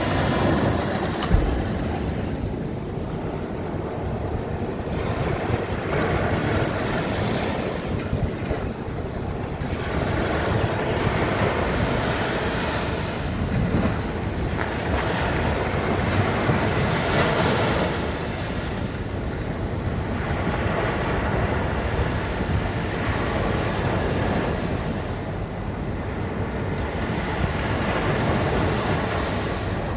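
Sea waves breaking and washing onto the shore, the surf swelling and falling every few seconds. A single brief thump about a second in.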